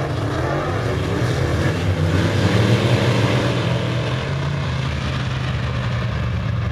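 A pack of dirt-track open-wheel modified race cars running at racing speed, their engines a steady loud drone that swells as they pass closest about two to three seconds in, then holds on as they go into the turn.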